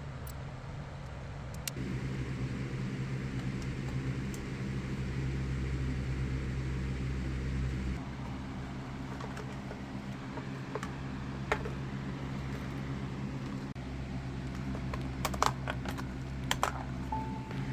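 Background music with sustained low chords that change every few seconds, with a few sharp clicks and taps near the end.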